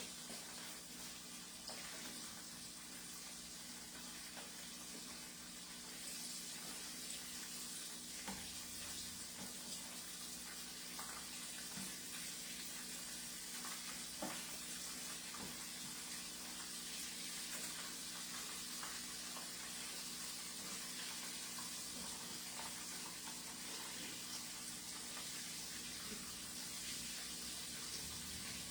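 Battered chicken pieces deep-frying in canola oil: a steady sizzle, a little louder from about six seconds in, with a few faint ticks.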